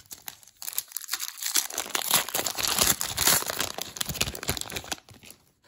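Wrapper of a baseball card pack being torn open and crinkled by hand: a dense crackle that is loudest in the middle and dies away about five seconds in.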